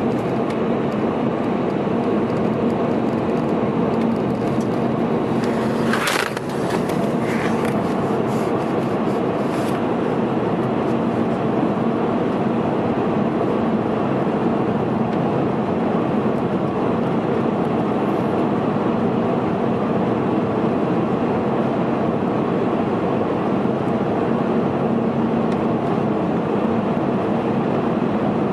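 A car driving through a road tunnel, heard from inside the cabin: steady tyre and engine noise with a low hum. About six seconds in, a short burst of clicks and hiss comes and goes over a few seconds.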